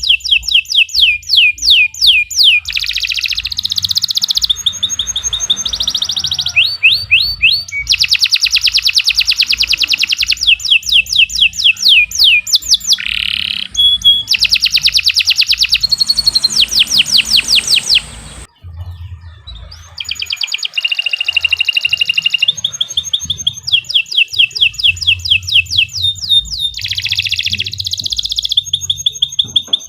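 Domestic canary singing a long, vigorous song made of rapid trills and rolls. Each phrase is a fast run of one repeated note before it switches to another, and there is a short pause about two-thirds of the way through.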